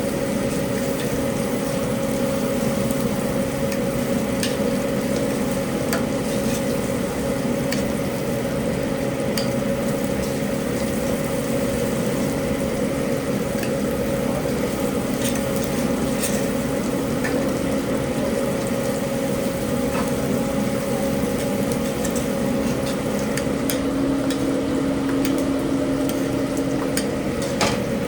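Restaurant kitchen line: food frying and sizzling over a steady mechanical hum, with a few scattered light clicks of utensils.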